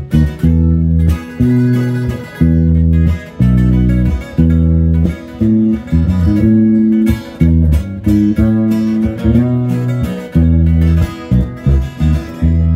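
Instrumental intro of a regional Mexican song played live on plucked guitars with a heavy bass line, in short rhythmic phrases with no singing.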